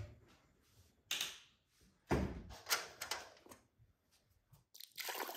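A few separate knocks and thumps, the loudest about two seconds in, then a steady rushing noise begins near the end.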